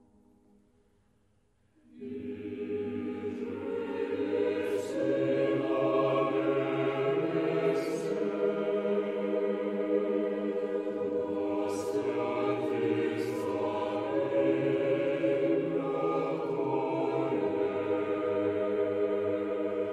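Background choral music: a choir singing a slow, sustained chant, coming in about two seconds in after a moment of near silence.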